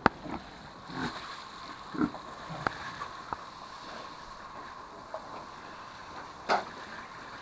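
Water from a garden hose spray nozzle hissing steadily as it showers fattening pigs, broken by a few short pig grunts and sharp knocks.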